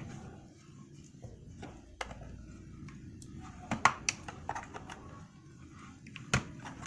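Plastic clicks and taps of a Bruder toy skid steer's body and clip being pried and wiggled loose, a few scattered sharp clicks with the loudest a cluster just past halfway and one near the end.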